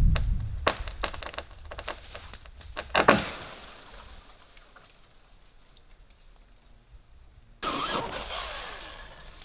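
Cordless electric pole saw running down, followed by sharp cracks and knocks of wood, the loudest about three seconds in. Near the end the saw starts again suddenly and fades off with a falling pitch.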